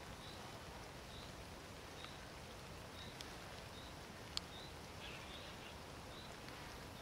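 Lakeside ambience in light rain: a faint steady hiss, a bird's short high call repeating roughly once a second, and a few sharp ticks of raindrops striking the camera, the loudest about four seconds in.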